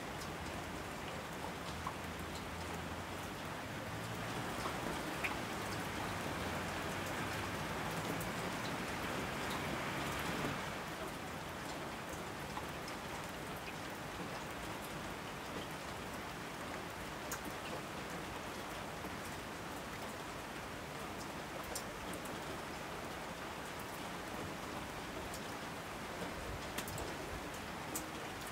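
Steady rain falling, with scattered drops ticking; it swells for several seconds and eases suddenly about ten seconds in.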